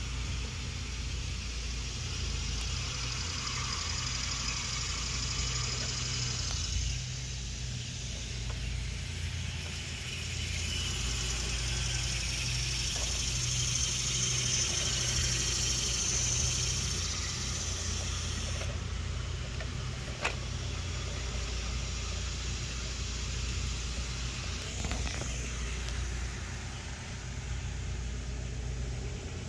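Petrol-engined yard equipment droning steadily, with a hiss that swells for several seconds and then drops away. A single sharp click comes about twenty seconds in.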